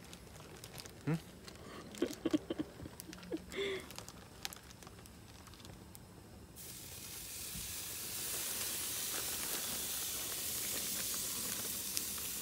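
Plastic zip-top bag crinkling and rustling as marinated steak is pulled out by hand. About six and a half seconds in, a steady sizzle starts suddenly as the steak goes onto the hot gas grill grate.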